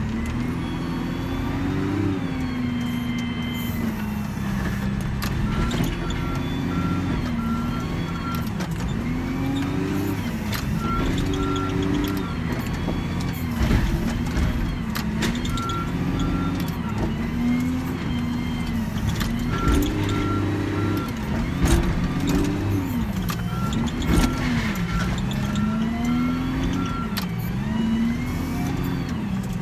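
Volvo wheel loader's diesel engine, heard from inside the cab, revving up and down again and again as the machine is driven and its lift arms worked. Its back-up alarm beeps in several spells of a few seconds while it reverses, and there are a few clunks.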